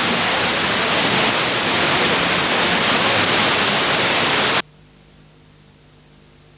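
Loud steady static hiss on the TV channel's audio, the noise of a failed microwave studio-to-transmitter link. It cuts off abruptly about four and a half seconds in, leaving a faint steady low hum.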